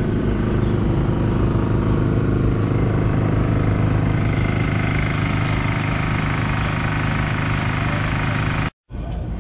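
An engine idling steadily, without revving. The sound cuts out completely for a moment near the end.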